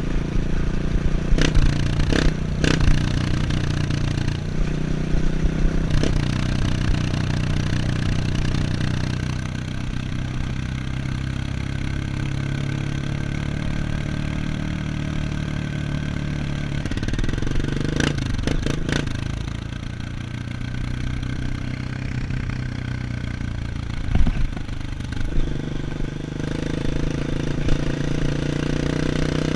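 Off-road motorcycle engine running on a dirt trail, its pitch shifting several times as the throttle and gears change, with a few sharp knocks and clattering from the bike over rough ground.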